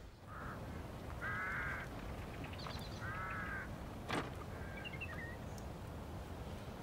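A bird calling: a faint call, then two calls of about half a second each. A single sharp click comes about four seconds in, followed by a few faint chirps.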